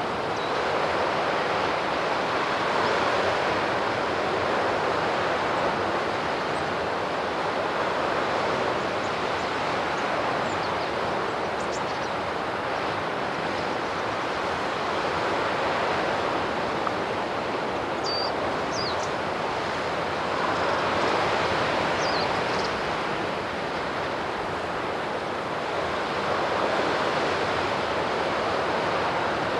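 Sea surf washing on the shore, a steady rush that swells and eases every five or six seconds. A few faint high chirps come through a little past the middle.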